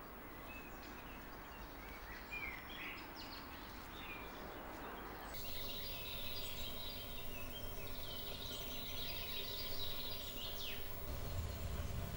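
Wild birds chirping and singing. About five seconds in, the sound changes abruptly to a denser chorus of birdsong over a faint steady hum.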